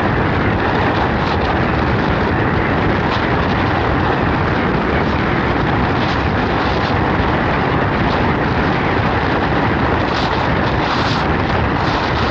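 Strong wind buffeting the microphone of a storm-chase vehicle's 360° camera: a loud, steady rushing noise mixed with the vehicle's road noise as it drives through a severe thunderstorm's high winds.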